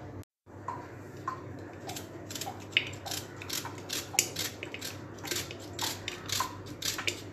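Raw onion being sliced in the hand over a metal pot, pieces dropping in: a run of crisp crunching cuts, about three a second, starting about two seconds in.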